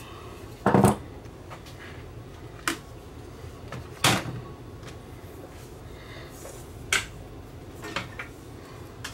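Handling noise on a workbench: a few separate knocks and clicks as small objects are picked up and set down. The loudest is about a second in, with another about four seconds in.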